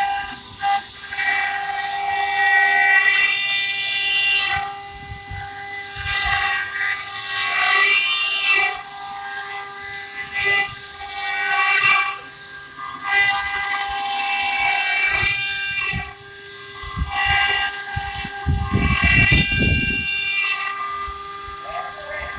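Multi-spindle CNC stone-carving machine running, with a steady high-pitched spindle whine. Every few seconds there is a loud stretch of screeching hiss as the bits cut into the stone.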